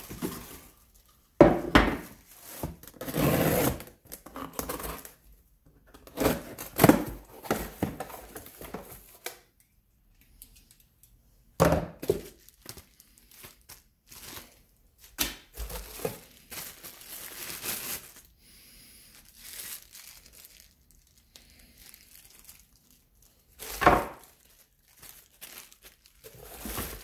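Plastic packaging bags crinkling and rustling as they are handled, together with cardboard box flaps moving, in irregular bursts with quiet gaps. A few sharp knocks come from items being set down on the bench.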